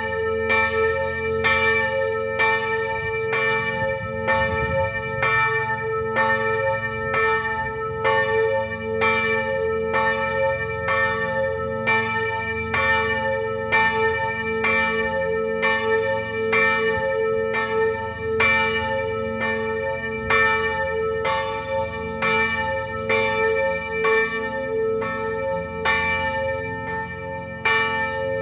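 Church bells ringing steadily, about one stroke a second, each stroke's ring running on into the next.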